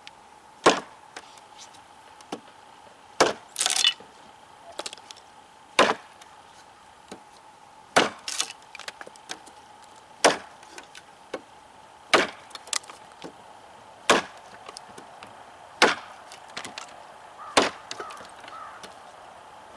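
A large chopping knife (cKc Voyager) striking into an old, dry spruce 2x4 with light wrist-driven chops, about ten sharp woody impacts roughly two seconds apart, some strokes doubled, with splintering as a notch is cut through the board.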